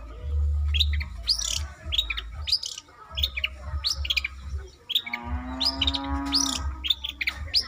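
A cendet (long-tailed shrike) singing a run of rapid, sharp chirps and quick sweeping notes, a mimicking song that borrows lovebird, sparrow and canary phrases. From about five seconds in, a long, low, drawn-out call like a cow lowing sounds for about a second and a half, over a low rumble.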